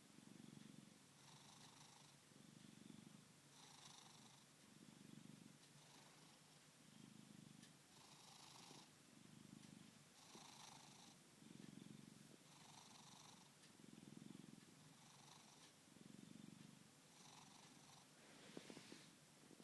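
A sleeping cat purring and snoring faintly, in a slow regular breathing rhythm of about one cycle every two seconds: a low purring phase alternates with a higher-pitched snoring phase. A brief crackle comes near the end.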